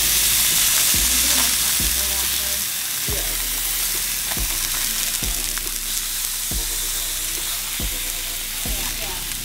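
Skin-on flounder fillets frying in a cast-iron skillet: a steady sizzle of hot fat, with a few short sharp clicks scattered through it.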